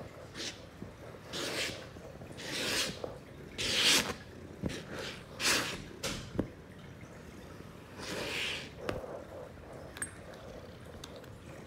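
Plastic cat grooming brush swishing through a cat's fur in short strokes, about six irregular swishes, the loudest about four seconds in, with a few sharp clicks near the end.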